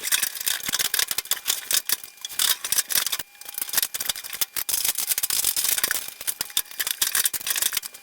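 Quick, irregular clicking and rattling of sheet-metal dryer cabinet parts being handled and fitted back together during reassembly.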